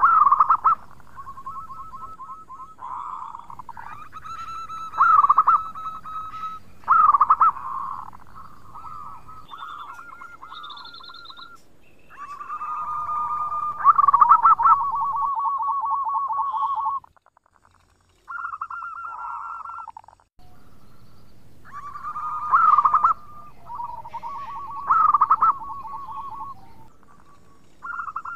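Zebra dove (perkutut) cooing: repeated phrases of quick, trilled coo notes on a fairly even pitch, several of them opened by a louder note, with short pauses between phrases.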